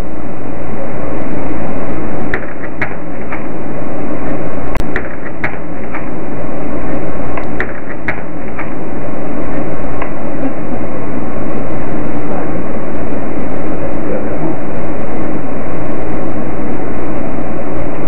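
Loud, steady hiss and low hum from a security camera's built-in microphone turned up high, with a scatter of light clicks and knocks in the first half.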